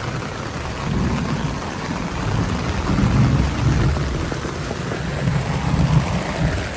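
Heavy rain pouring down, a steady hiss with a fluctuating low rumble underneath.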